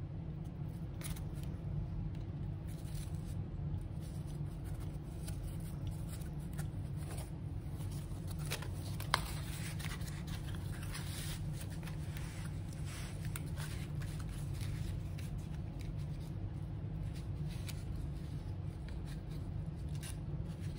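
Faint rustling and scraping of yarn and cardboard being handled, over a steady low hum, with one sharp click about nine seconds in.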